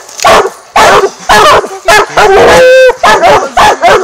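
Treeing Walker coonhounds barking loud and close in a quick, unbroken run, with one longer drawn-out bawl about two and a half seconds in.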